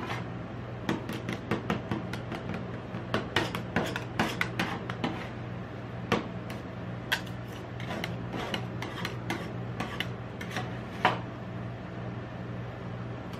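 Metal spatulas chopping and scraping ice cream mixture on the steel surface of a rolled-ice-cream cold plate: irregular taps and scrapes, busier in the first half, with one sharper strike near the end. A steady low hum runs underneath.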